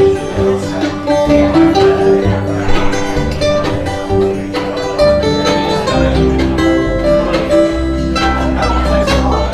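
Instrumental break of a bluegrass-style country song: plucked string instruments play a melody over a changing bass line, with no singing.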